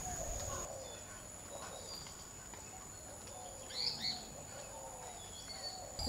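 Birds chirping and calling against a quiet rural background, with two louder chirps about four seconds in.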